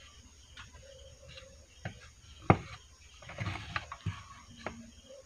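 Handling noise: scattered light clicks and knocks as the wooden-framed coil box and its wiring are handled, with one sharper click about two and a half seconds in.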